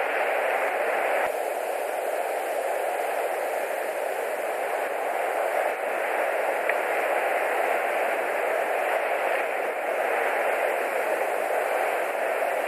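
Steady, even hiss on the nest camera's audio feed with no bird calls, broken by a small click about a second in where the recording jumps.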